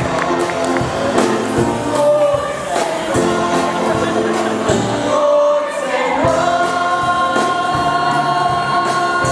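Group singing of a show tune with band accompaniment and a steady beat, settling into long held notes about six seconds in.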